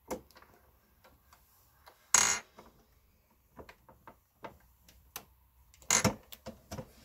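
Lee Auto Turret reloading press being worked to seat a bullet: scattered light metallic clicks and ticks, with two louder short clattering clunks, one about two seconds in and one near the end.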